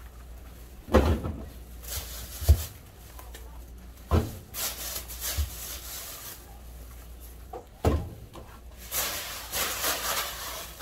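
Plastic grocery bags rustling and crinkling as they are handled and emptied, with several sharp knocks of items being set down on a kitchen counter.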